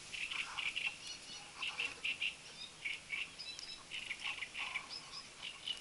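Mesh landing net rustling in short, irregular bursts as hands work a crucian carp free of it.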